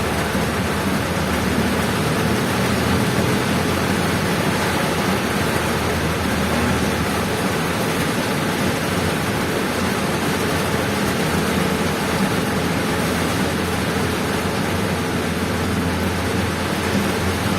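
Heavy rain and wind on a vehicle moving along a wet road: a steady rushing hiss of rain and tyre spray with a low engine hum underneath.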